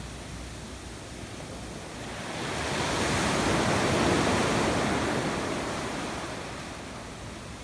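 Sea waves washing onto the shore. One wave surges in about two seconds in, is loudest near the middle and drains away, with quieter lulls at the start and end.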